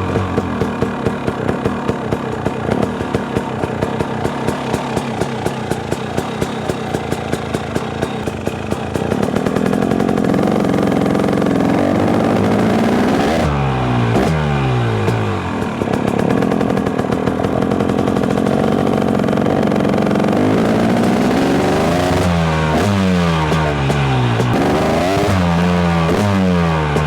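KTM 250 SX two-stroke dirt bike engine running: idling with a regular popping beat at first, then blipped on the throttle several times, the revs rising and sliding back down after each blip, once around the middle and several times near the end.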